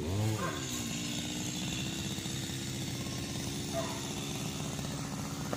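Two-stroke chainsaw engine running steadily at an even pitch.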